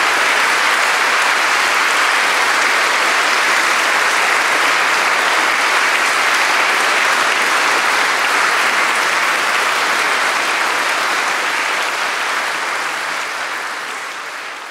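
Concert audience applauding steadily, the clapping thinning and fading away near the end.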